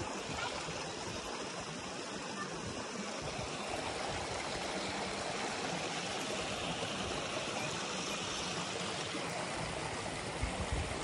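Creek water running steadily, an even rushing hiss, with a few brief low rumbles near the end.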